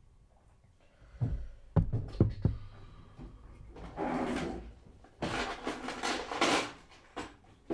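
A desk drawer being handled: a few sharp knocks, then longer sliding and rattling about halfway through as the drawer is pulled open and its contents move.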